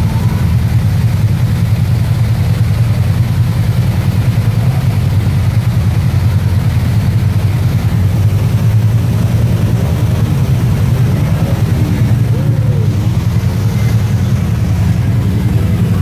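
Side-by-side UTV engine idling close by, a steady low drone, with the hiss of a rushing creek behind it.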